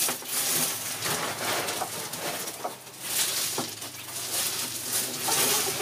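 A brooding hen's low clucking and cooing calls, over repeated rustling and scraping of gravel and litter.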